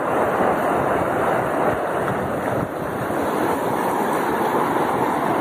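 Muddy floodwater from heavy rain rushing across a dirt road and through brush, a steady rushing noise of fast-flowing water.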